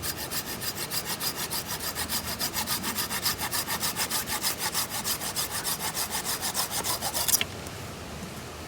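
Saw cutting wood with quick, even back-and-forth strokes, about five a second, stopping suddenly near the end.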